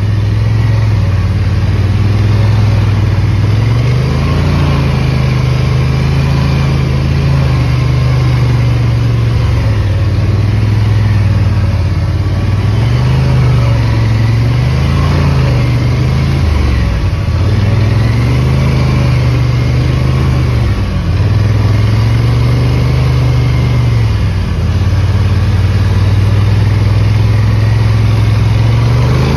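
ATV engine running while riding a dirt trail, its pitch rising and falling repeatedly with the throttle, easing off briefly a few times.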